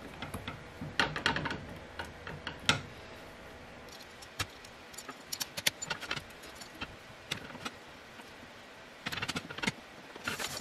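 Small metal miter-gauge hardware clicking and clinking as it is handled and adjusted: irregular sharp ticks and taps, with a busy cluster about a second in, a single louder tap a little later, and another cluster near the end.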